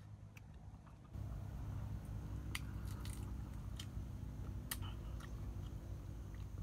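A person chewing and crunching whole fried chicken while tearing it apart by hand, with a few sharp cracks from the crisp skin and bones. A steady low hum runs underneath and gets louder about a second in.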